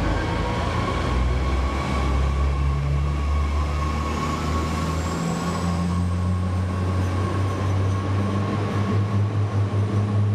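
Regional passenger train moving along a station platform: a steady low drone with a faint high whine that rises slowly.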